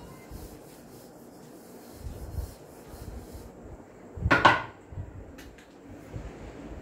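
Handling noise as a whiteboard duster rubs the board, then, about four seconds in, a short loud clatter of objects being put down on a wooden cabinet, followed by a couple of light clicks.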